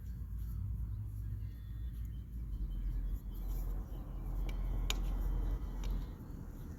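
Handling noise of electrical cables being pushed up into an e-bike frame: a low rumble with a few light clicks, the sharpest about five seconds in.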